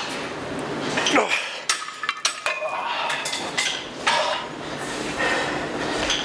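Metal gym weights clanking and clinking during a set: a string of sharp knocks, one of which rings on briefly in the middle.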